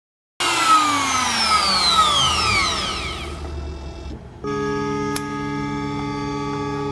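Desktop CNC router spindle spinning down: starts suddenly, and its whine falls in pitch and fades over about three seconds. About four and a half seconds in, electric guitar music starts.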